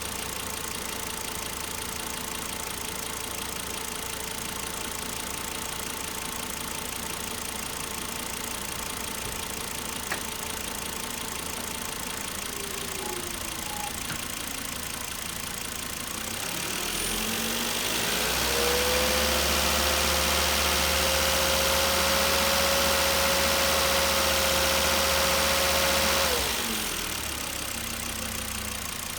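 Volvo XC70 2.5T's turbocharged five-cylinder engine idling, then revved up after about 17 seconds and held at a raised, steady speed for about eight seconds before dropping back to idle.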